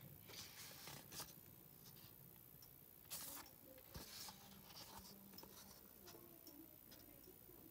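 Near silence, with a few faint rustles of stiff paper photo-card sheets being handled and flipped.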